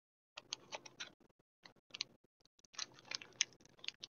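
Trading-card booster pack and cards being handled: irregular short crackles and clicks of the foil wrapper and card stock. They start a little after the beginning and become busier in the second half.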